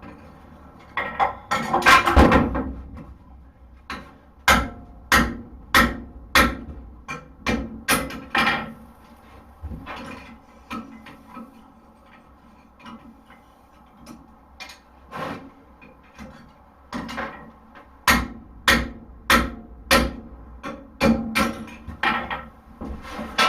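Blacksmith's hammer striking hot horseshoe steel on an anvil, sharp ringing blows about two a second in runs, with a few seconds' pause near the middle.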